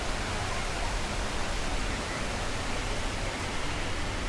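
Steady rushing noise, even across high and low pitches, with no distinct events.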